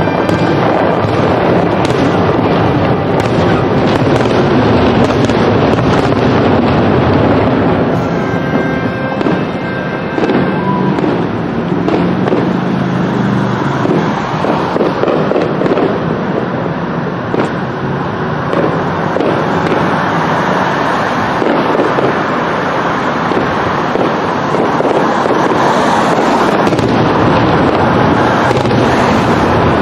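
Fireworks display: many shells bursting in quick succession, the bangs overlapping into a steady, unbroken din.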